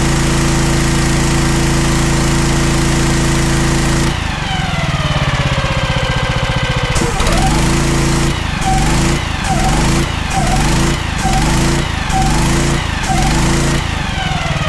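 Briggs & Stratton petrol engine driving a pressure-washer pump at high revs with the lance spraying. About four seconds in, the trigger is let go: the spray hiss stops and the auto throttle drops the engine back toward idle. From about seven seconds in, the trigger is pulsed in a string of short spray bursts about once a second, the engine speed dipping and recovering with each, before it falls toward idle again near the end.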